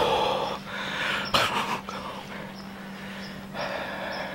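A man breathing hard through an open mouth: three loud, breathy gasps, with one sharp knock about a second and a half in.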